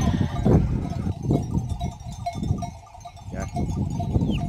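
A flock of small livestock bleating, with several calls overlapping.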